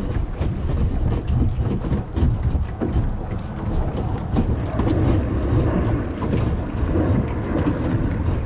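Footsteps splashing and sloshing irregularly through ankle-deep water beside a plastic kayak, over a steady rumble of wind on the microphone.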